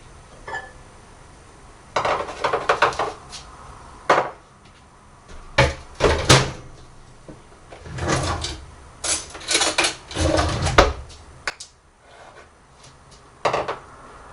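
Kitchen handling noises: a string of knocks and short clattering rattles, like drawers and cupboard doors being opened and shut and utensils being set down, coming in bursts with short pauses between.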